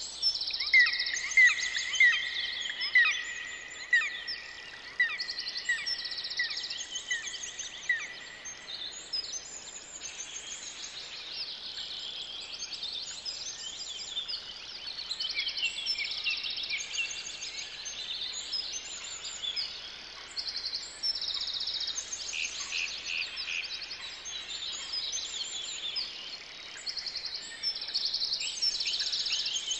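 Chorus of wild birds singing, with many overlapping high trills, and a sharp chirp repeated roughly once a second for the first eight seconds or so.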